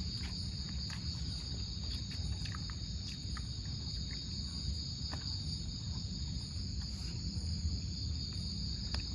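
Steady night insect chorus, a continuous high trill held at one pitch, over a low rumble, with a few faint clicks.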